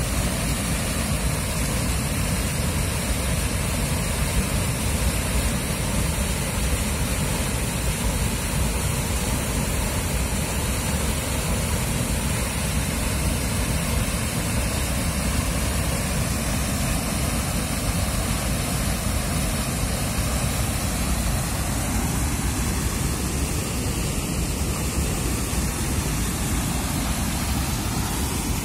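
Water pouring over a concrete weir and churning in the channel below: a loud, steady rush of falling water.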